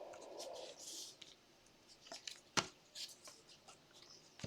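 Faint handling of trading cards: a soft rustle in the first second, then a few scattered light clicks and taps.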